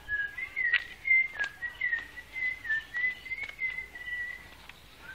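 A person whistling a tune: one unbroken whistle wavering between nearby pitches, stopping shortly before the end, with a few sharp clicks underneath.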